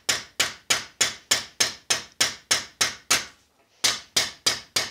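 Cross-peen hammer tapping lightly and steadily on the edge of a high-carbon steel scythe blade held on a steel anvil, about four taps a second, with a short pause a little past the middle before the tapping resumes. This is peening, with the hammer blows drawing the edge out thin.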